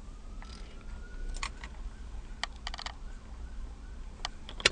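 A car key being handled in its ignition lock: a few light, scattered clicks and taps, with a short quick rattle about two and a half seconds in.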